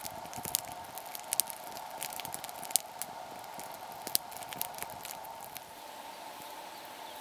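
Campfire of dry sticks and split kindling crackling, with irregular sharp pops that come thick for the first five seconds and thin out near the end.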